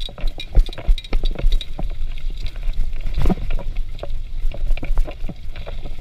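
Bicycle rattling over a bumpy dirt trail at speed: irregular clicks, knocks and clinks from the bike's frame and chain as it hits bumps, over a continuous low rumble of tyres rolling on dirt and leaves.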